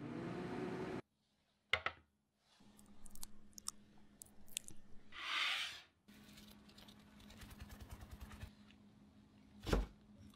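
Quiet close-up kitchen sounds of dessert-making: about a second of steady oven hum that cuts off abruptly, then light clicks and scrapes and a soft whoosh. A run of light, even taps follows as cocoa powder is sifted through a small sieve, and a single soft thump comes near the end.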